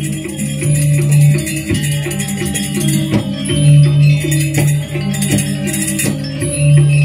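Balinese gamelan playing: a repeating figure of struck metallic notes over a sustained, pulsing low tone, with fast shimmering cymbal-like percussion on top.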